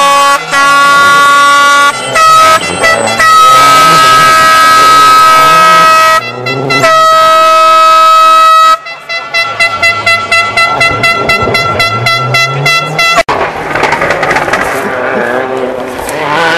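Spectators' air horns sounding in long steady blasts at several pitches for about the first nine seconds. A rally car engine then revs and accelerates, and after an abrupt cut about thirteen seconds in, a rally car engine is heard at a distance.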